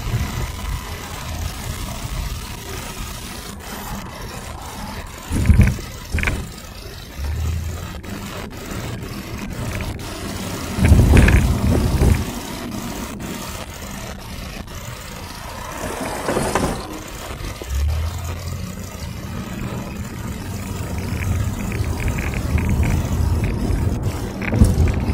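Road and engine noise heard from inside a moving car: a steady low rumble with several louder surges, the longest about eleven seconds in.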